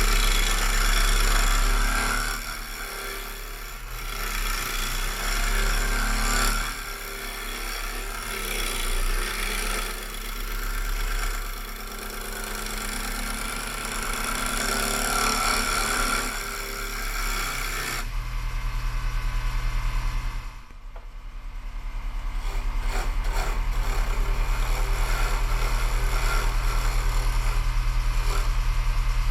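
Carbide turning tool cutting a spinning maple bowl blank on a wood lathe: a scraping hiss that rises and falls as the tool is pushed into the wood. About eighteen seconds in the cutting stops and the lathe motor keeps running with a steady hum.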